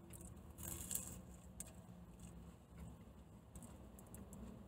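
Quiet chewing of a flaky pastry steak bake, with a soft rustle about a second in, over a low steady hum inside a car's cabin.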